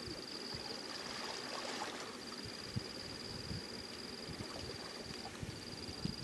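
An insect trilling steadily at a high pitch, breaking off briefly twice, over faint water noise and a few soft knocks.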